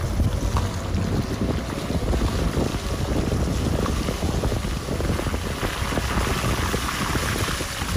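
Car driving over a rough dirt road, a steady low rumble from the tyres and body, with wind rushing over the microphone that grows louder in the second half.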